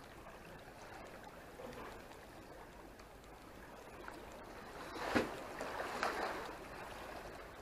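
Sea water sloshing and lapping against the breakwater's concrete blocks, with a louder splash about five seconds in and another swell about a second later.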